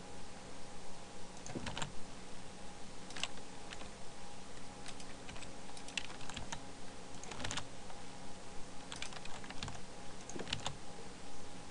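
Scattered clicks and key taps on a computer keyboard and mouse, some in short quick runs, over a faint steady hum.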